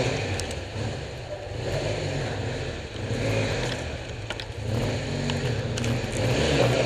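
Honda Africa Twin XRV750 V-twin engine running at low revs, its level swelling and easing, with scattered knocks and clicks as the heavy bike is manhandled.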